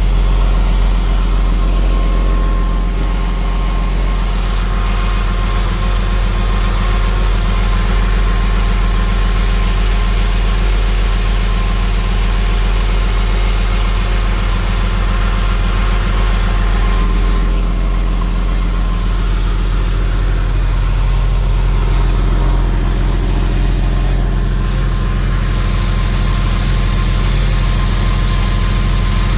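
Porsche 996 Carrera 2's 3.4-litre water-cooled flat-six engine idling steadily.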